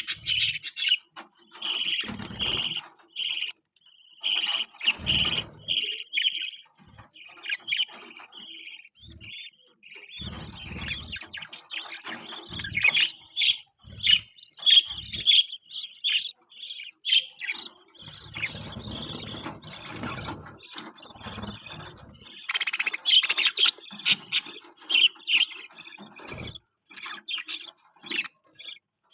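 Budgerigars chirping: a steady stream of short, rapid chirps and twitters, with a denser, louder flurry about two-thirds of the way through.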